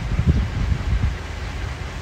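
Wind buffeting the microphone: a low rumble with a few stronger gusts in the first second.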